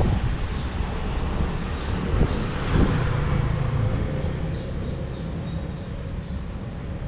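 Street traffic noise: a motor vehicle going by with a low rumble, loudest about three seconds in and then slowly fading.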